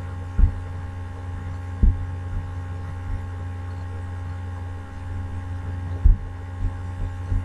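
Steady low electrical hum, with a few faint thin whines above it, broken by three short low thumps: one near the start, one about two seconds in and one about six seconds in.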